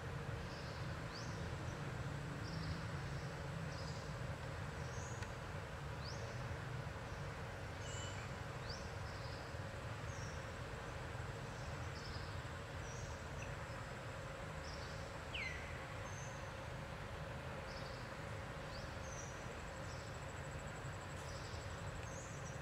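Forest ambience: short high chirps about once a second, with a few quick falling whistle notes from birds or insects, over a steady low rumble and hiss.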